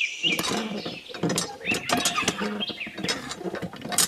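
Irregular clicking and scraping as a painted stick is pushed and worked into the slot of a small model hand pump.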